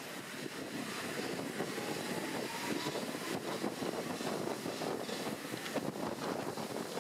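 Paris Métro train pulling out of a station and gathering speed into the tunnel, heard from inside the car as a steady running rumble and rattle with a faint rising whine partway through.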